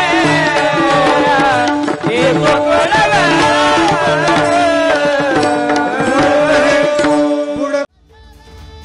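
Male voice singing a Marathi devotional kirtan melody with ornamented, wavering pitch, over a hand drum and sustained instrumental notes. The music cuts off abruptly about eight seconds in, and quieter music follows.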